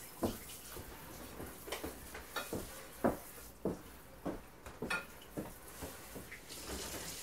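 Kitchen clatter: scattered light knocks and clinks, about a dozen, irregularly spaced, as a refrigerator door is shut and opened again and things are handled at the counter.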